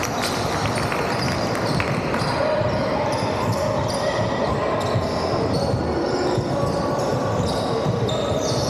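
Basketball being dribbled on a wooden hall court, with the squeak of trainers and players' and spectators' voices echoing in the large sports hall.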